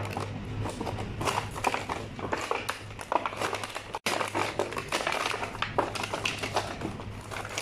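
Thin clear plastic blister tray crinkling and clicking as hands press on it and move hard plastic toy robot parts, with irregular taps and rustles over a steady low hum.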